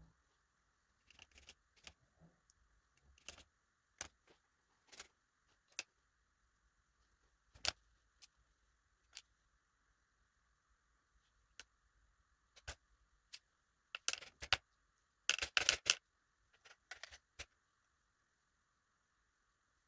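Small metal lock pins and tools clicking as the key pins are taken out of a DOM ix Twinstar lock core and dropped onto a tray: scattered single sharp clicks, then a quick run of clicks near the end.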